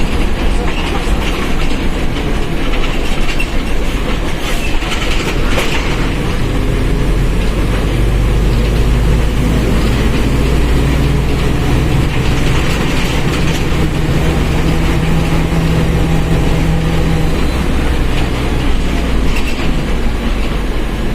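Mercedes-Benz OF1721 BlueTec 5 bus running on the road, its engine and drivetrain making a steady, loud rumble with a low hum that holds for several seconds midway.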